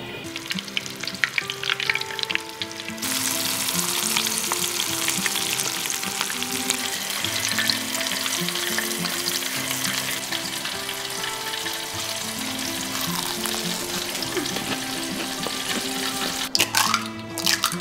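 Breaded shrimp deep-frying in a pot of hot oil: a dense, steady crackling sizzle that comes in about three seconds in, after a few light clicks. Near the end, sharp cracks as an egg is broken on the rim of a bowl.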